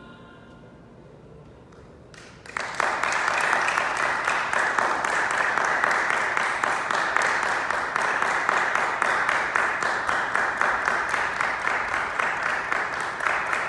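Audience applause breaks out suddenly about two and a half seconds in, as the last of the music fades away, and carries on at a steady level.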